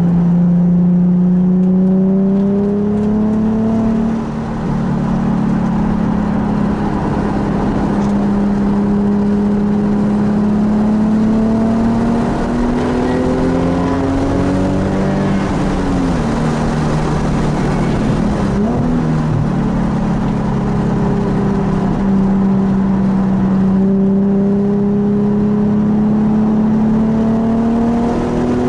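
Nissan 370Z's V6 engine under load on a race track. The note climbs steadily with a short lift about four seconds in, swoops quickly up and down twice around the middle as the car slows and shifts, then climbs again near the end.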